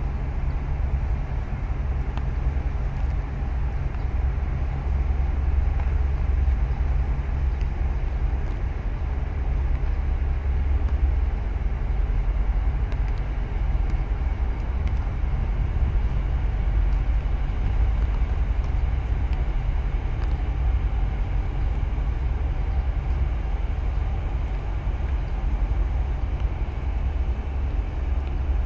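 Wind buffeting the microphone: a steady, gusting low rumble with little else above it.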